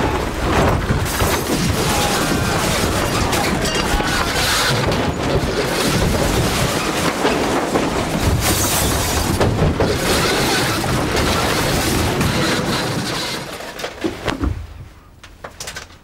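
A van crashing and overturning: a long, loud, continuous rumble and clatter that drops away sharply about fourteen and a half seconds in.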